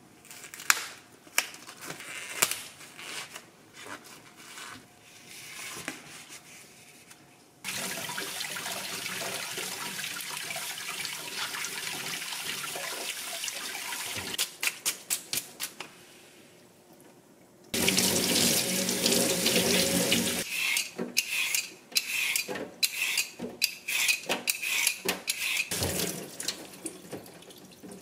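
Plastic wrap crinkling as a supermarket tray of octopus is unwrapped, then a kitchen tap running into a stainless steel sink twice for several seconds, with wet octopus being scrubbed by hand in a plastic colander between and after the runs.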